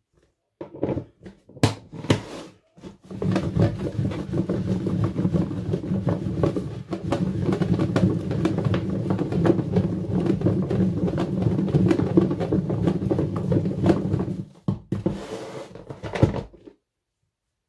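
Sliced raw champignons in oil and spices tumbling and rattling inside a closed plastic food container as it is shaken to mix the marinade. It starts with a few clicks as the lid is fitted, the shaking runs for about eleven seconds, and there is a shorter burst of handling near the end.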